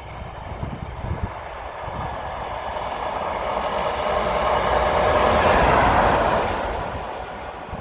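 Class 37 diesel locomotive 37884 approaching and passing at speed, the rush of engine and wheel noise building to a peak about five to six seconds in, then fading as it goes by.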